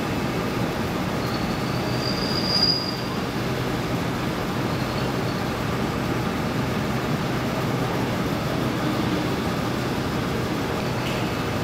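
Steady rumbling vehicle noise with a brief high squeal about two and a half seconds in.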